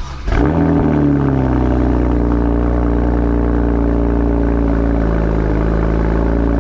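BMW 335is twin-turbo inline-six engine starting up about a third of a second in. It flares briefly, then settles into a steady idle.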